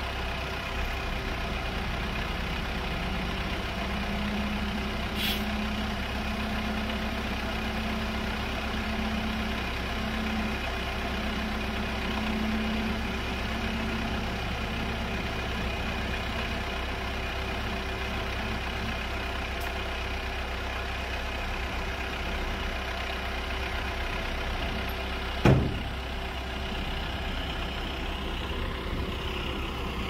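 Diesel engines of a bulldozer and a dump truck running steadily, with a higher engine tone held for about ten seconds while the dump truck's hydraulic hoist tips its bed up. A single sharp bang sounds about 25 seconds in.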